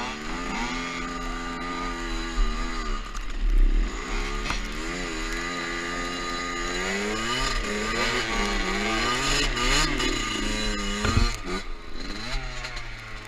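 Two-stroke dirt bike engine revving up and backing off again and again as it is ridden, its pitch climbing and dropping several times.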